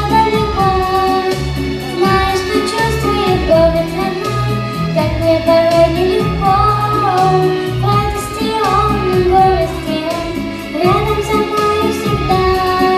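Music: a song with a sung melody over a bass line.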